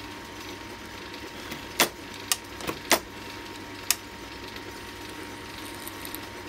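World War I capstan lathe running with a steady mechanical hum and a faint whine. About two seconds in comes a quick run of about five sharp clicks and knocks over two seconds, the loudest just before and at the three-second mark.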